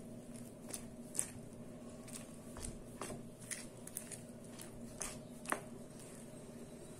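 Spatula stirring thick semolina batter in a plastic bowl: soft wet squishing with irregular light clicks of the spatula against the bowl, the sharpest about a second in and near the end, over a faint steady hum.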